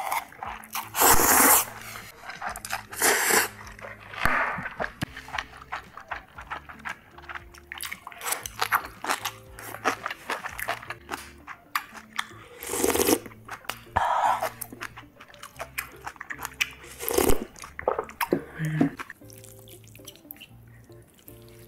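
A person eating instant ramen noodles with chopsticks: several loud, long slurps with close-up wet chewing and clicks of the mouth between them, quieter near the end.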